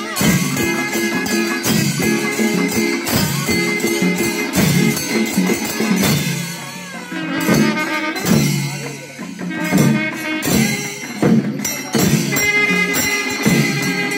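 Traditional temple festival music: fast, continuous strokes of percussion with jingling or clashing metal, over a pitched melody line playing repeated notes.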